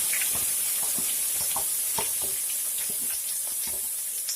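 Ground onion-tomato masala paste frying in hot sesame oil in a kadai, with a steady sizzling hiss. Short scrapes and taps of the stirring utensil against the pan come through it, a slightly louder one near the end.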